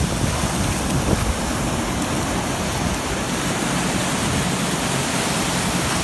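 Ocean surf washing in over the shallows: a steady rush of breaking waves and foaming water.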